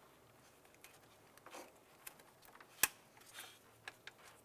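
Gloved hands working a plastic transmission vent line off its retainer hooks: soft rustling and a few light plastic clicks, with one sharp click a little under three seconds in.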